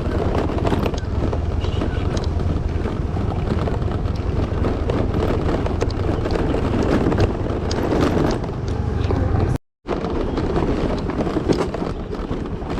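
Scooter riding over a rough, unpaved hill track: a steady low engine hum under wind buffeting the microphone, with frequent knocks and rattles from the bumps. The sound cuts out completely for a moment near the end.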